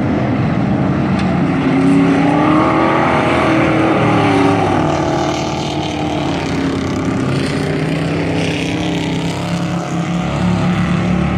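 Several dirt-track race trucks' engines running hard at racing speed. Their pitch rises and falls as the trucks accelerate, lift and pass by.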